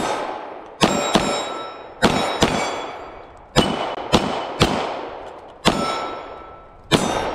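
Semi-automatic pistol firing about nine shots at an uneven pace, some as quick pairs. Several shots are followed by the ring of steel targets being hit.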